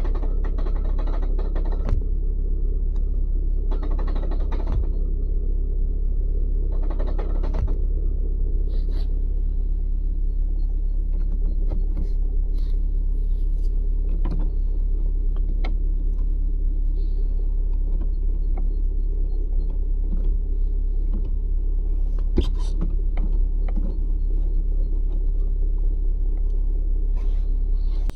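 Manual-gearbox car engine idling in neutral, with a rattle that sets in when the clutch pedal is released, heard as three bursts in the first eight seconds, then scattered clicks and knocks over the steady idle.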